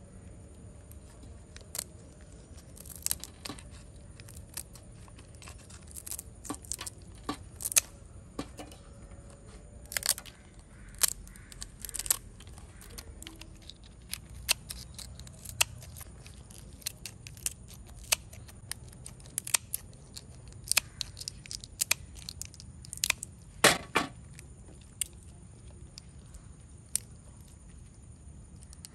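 Kitchen scissors snipping through a langoustine's shell: irregular sharp snips and cracks, the loudest about 24 seconds in.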